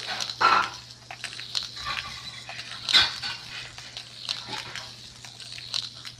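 Irregular plastic clicks and knocks from a ball-in-track cat toy as a cat bats at it with its paw, the loudest knocks about half a second and three seconds in.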